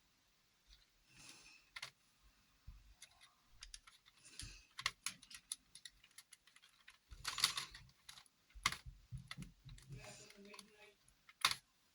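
Packaging of a set of watercolour pencils being handled and prised open: irregular small clicks and taps with short bursts of rustling, the loudest about seven and a half seconds in and again near the end.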